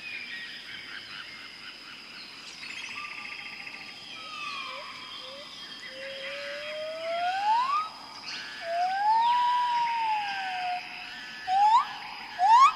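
Jungle ambience: birds calling over a steady high insect drone. There are loud whistled calls in the second half, one long rising and one rising then falling, and then quick upswept whistles near the end.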